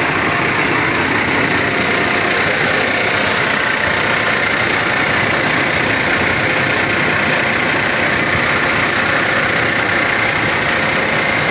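Semi truck's diesel engine running steadily, heard from the truck.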